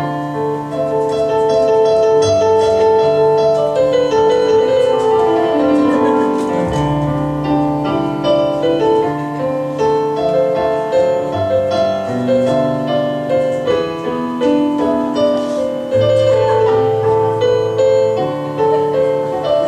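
Instrumental piano music: held chords changing every second or so over a moving bass line.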